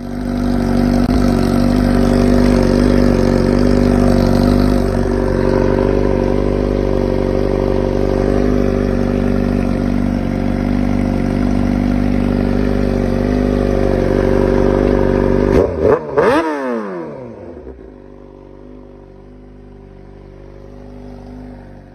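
Suzuki GSX-R600's inline-four engine and exhaust running steadily, loud and even, for about fifteen seconds. Then it gives a quick double blip of the throttle whose pitch falls straight back, and it settles to a much quieter idle near the end.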